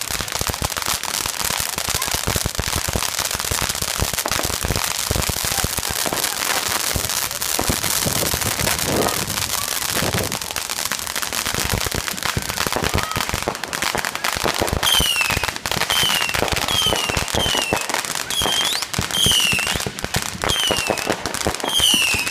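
Ground fireworks and firecrackers going off in a dense, continuous run of rapid crackling and popping. In the last third a short falling whistle repeats over and over above the crackle.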